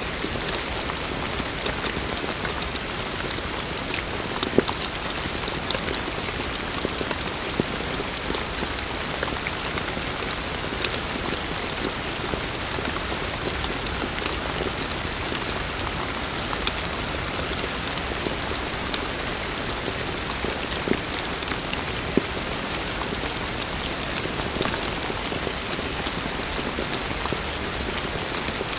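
Heavy rain falling steadily, a dense even hiss with scattered sharper drop impacts, a few of them louder than the rest.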